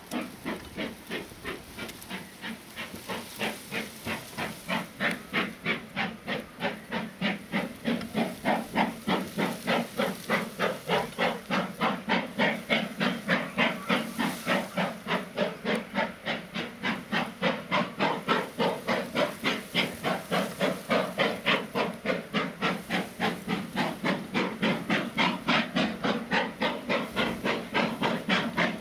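Steam locomotive working under steam, its exhaust beating out a steady rhythm of chuffs that slowly quicken from about two to nearly three a second as the train gathers speed.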